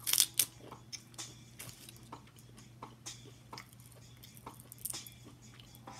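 Crab leg shells being cracked and pulled apart by hand, with a couple of loud cracks right at the start, then scattered small clicks and crackles as the meat is picked from the shell.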